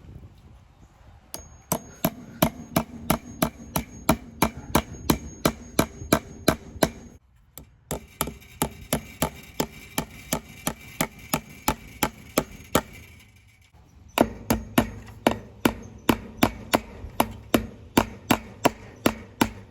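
Hammer driving fence staples into a wooden post to fasten field-fence wire. The blows are sharp and steady, about three a second, in three runs with two short breaks.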